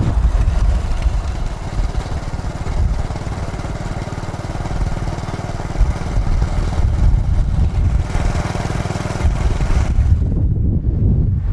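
Motorcycle engine running amid road traffic, heard from a motorbike riding through traffic, with a steady low rumble. The higher hiss falls away about ten seconds in.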